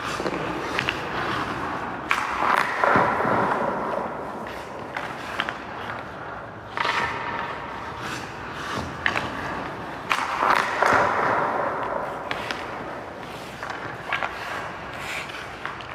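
Hockey skates scraping and carving across rink ice in several long scrapes, with sharp clacks of stick and puck between them.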